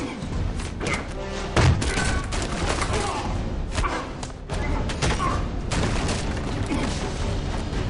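Film fistfight sound: a rapid string of punches and bodies slamming against walls and doors, with men grunting and yelling. The hardest slam comes about one and a half seconds in.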